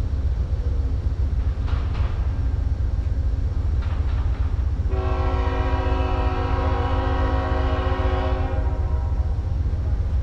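Locomotive multi-chime air horn sounding one long steady chord of nearly four seconds, starting about halfway through, over a steady low rumble.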